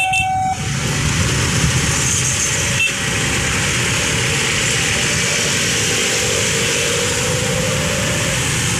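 CC203 diesel locomotive running nearby while shunting: a steady rumble of engine and rail noise, with a single click about three seconds in.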